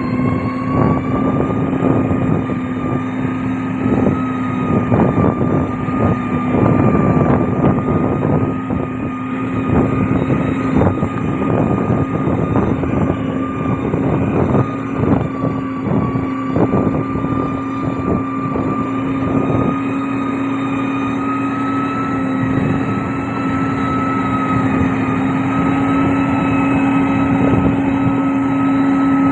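Heavy diesel road-construction machine running at a steady engine speed, with a strong steady hum and frequent irregular knocks and crunches.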